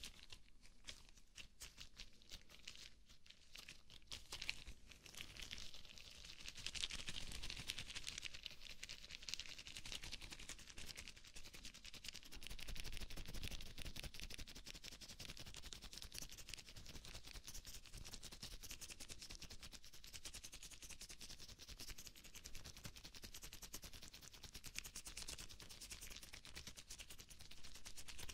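Rubber gloves rubbed and flexed close to a binaural microphone: dense, fast crackling of the rubber, sparser for the first few seconds and then continuous.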